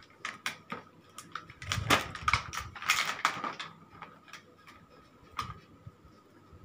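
Paper and plastic packaging rustling and crinkling as a child handles and pulls apart gift wrapping: a quick run of sharp crackles and clicks, busiest in the first half, thinning to a few scattered ones.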